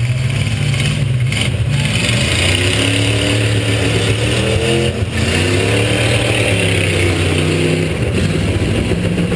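V8 demolition derby car engine running loud and steady, revving up and down several times in the middle.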